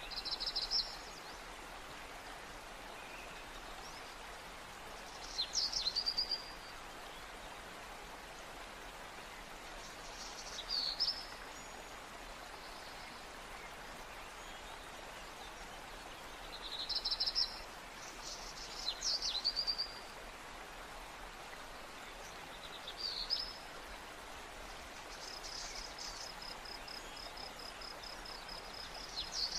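Birds chirping in short high calls with quick pitch sweeps every few seconds, over a steady hiss, with a fast even trill of high ticks near the end.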